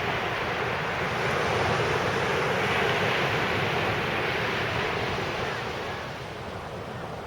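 Sea surf: a wave breaks and washes up the beach, the rush swelling over the first couple of seconds and fading away near the end, with some wind on the microphone.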